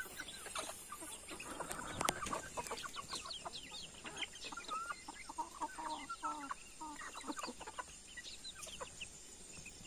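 A flock of chickens, hens and roosters, clucking softly and continually, many short calls overlapping. There is one sharp click about two seconds in.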